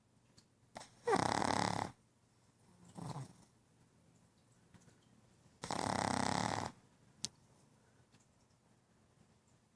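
A pug snoring: two loud snores, each just under a second long and about four and a half seconds apart, with a fainter snore between them.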